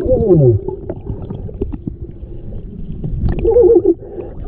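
A man's muffled exclamation, "whoaa", heard underwater, falling in pitch at the start, and a second wavering vocal sound about three and a half seconds in. Underneath is a low underwater rumble with scattered small clicks and knocks as a hand moves among the creek stones.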